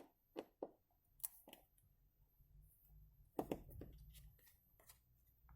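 Faint, scattered small clicks and ticks of a precision screwdriver working tiny screws out of a smartphone's plastic back housing.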